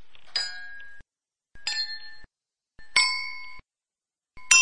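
Metal glasses holding different amounts of water, struck with a wooden stick. There are four strikes about a second and a half apart, each ringing at a different pitch and stopping abruptly. The last strike is the loudest.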